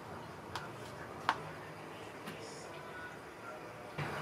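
A few light clicks of a spoon against a plastic blender jug as ingredients are spooned in, the loudest about a second in, over low room noise.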